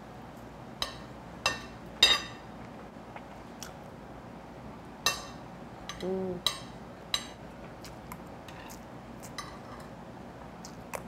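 Metal spoon and fork clinking and scraping against a ceramic plate: a handful of sharp, separate clinks spread through, with a brief hum about halfway.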